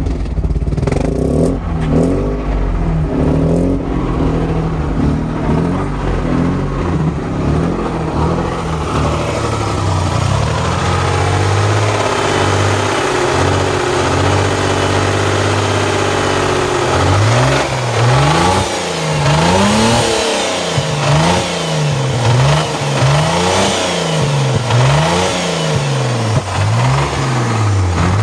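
Mazda RX-8's twin-rotor Renesis rotary engine being revved while the car is stationary, run to show a rattling noise from the engine. It holds a steady speed for several seconds midway, then is blipped up and let fall back over and over, about once every second and a half.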